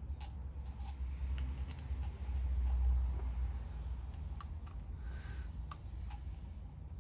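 Small, scattered metallic clicks and taps as steel bolts are pushed up through an air compressor's cylinder head and gasket, over a low rumble of handling that swells about halfway through.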